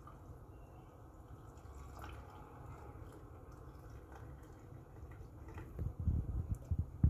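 Coffee trickling from a small copper coffee pot (cezve) into a glass mug of milk over ice, the thin stream tapering to drips. A few dull low thumps come near the end.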